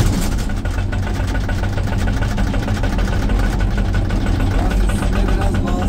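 Excavator-mounted hydraulic breaker hammering rock with a rapid, steady rhythm of blows, over the excavator's diesel engine running under load, heard from inside the operator's cab.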